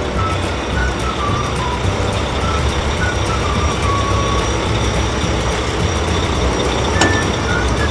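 Steady low rumble of a cartoon truck's engine sound effect, with a few faint high notes stepping over it and a short click near the end.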